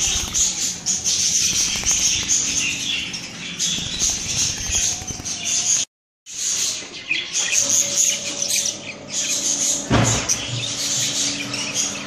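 Budgerigars chirping and chattering non-stop in a dense, high-pitched warble. The sound drops out briefly about six seconds in, then resumes, with a low thump about ten seconds in.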